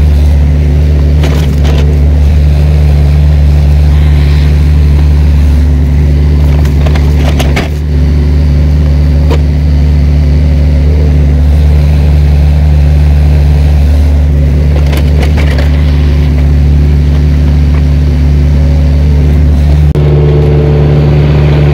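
Excavator engine running steadily close by, with a few sharp knocks over it. Its tone shifts near the end.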